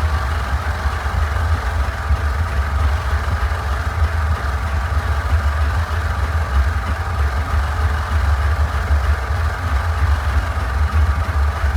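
Lawnmower engine running steadily with a low rumble.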